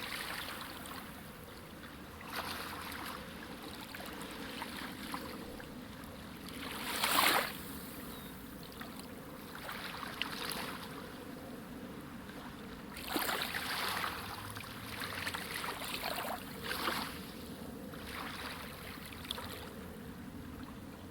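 Moving water: a steady wash with several louder surges that swell and fade, the loudest a few seconds in.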